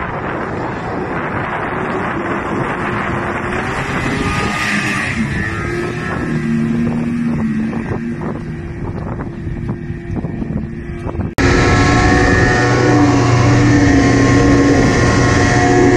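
Snowmobile engine held at high revs while the sled skims across open water. At first it is farther off under wind rushing over the microphone. After a sudden cut about two-thirds in, it is loud and close from the rider's own camera, a steady high engine note.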